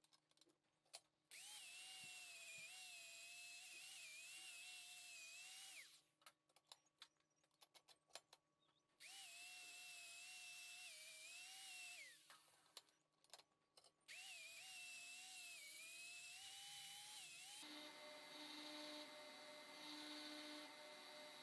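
Angle grinder with a wire cup brush, faint, running in three spells of a few seconds each against a forged axe head. Its whine wavers and dips as the brush bears on the steel, and once it falls away as the grinder spins down. Near the end a belt grinder takes over with a steadier hum.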